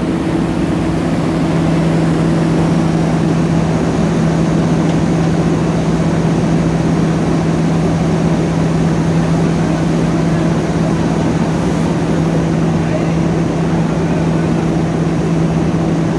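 Diesel engines of asphalt paving machinery running steadily, with a strong constant hum.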